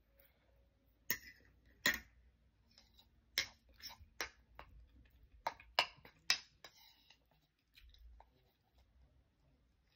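A metal spoon clinking and scraping against a ceramic bowl, about ten sharp clicks in the first seven seconds with the two loudest near the start, and quiet chewing in between.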